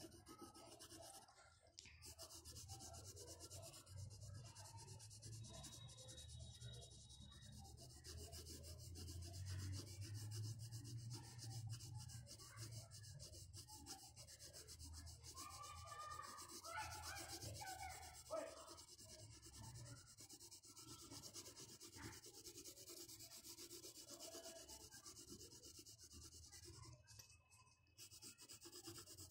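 Pencil shading on paper: faint, irregular scratchy strokes as graphite is scribbled back and forth across the sheet, over a low steady hum.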